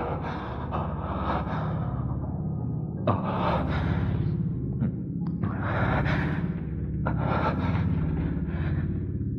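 A man breathing hard, with long heavy gasps every couple of seconds over a low steady drone. He is winded after a struggle.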